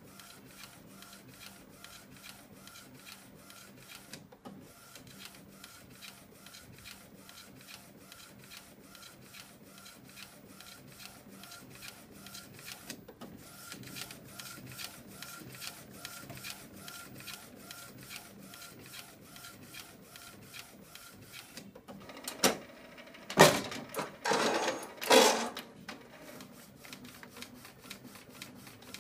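Inkjet ID-card printer printing a tray of PVC cards: the print-head carriage shuttles back and forth with a rapid, regular ticking as the tray steps through. About three-quarters of the way in come a few much louder mechanical whirring bursts from the feed mechanism as the print job finishes.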